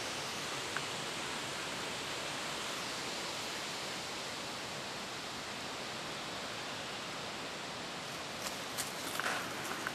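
A steady, even hiss, with a few light rustles and clicks near the end as the cat moves over dry leaves and grass.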